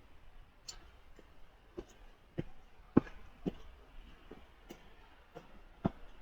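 Footsteps on a stony woodland path: irregular short knocks, roughly one every half second to a second, the loudest about three seconds in.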